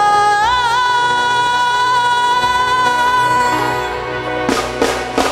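Live gospel band music: a singer holds one long high note that steps up in pitch with a brief waver about half a second in, over the band. Near the end the note fades and drums and cymbals strike three quick closing hits.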